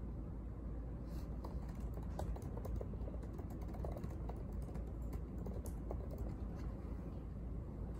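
Typing on a laptop keyboard: irregular runs of light key clicks, over a steady low background hum.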